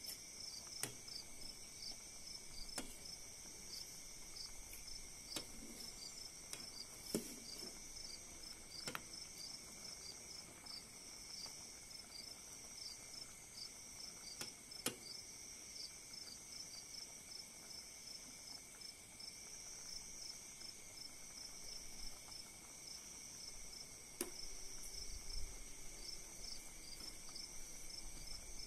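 Faint, steady, high-pitched chorus of insects, likely crickets, with a regular pulsing chirp running through it. A few scattered faint clicks and pops from the boiling pot are heard under it.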